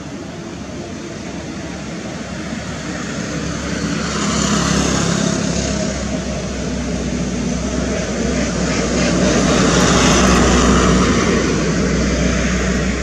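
Engine noise with a steady low hum that swells twice, about four and ten seconds in, like a passing motor.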